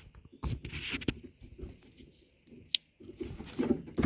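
Plastic clicks and rustling of wires as an electrical connector is handled and plugged into a Ford keyless-entry keypad module, with one sharp click near the end.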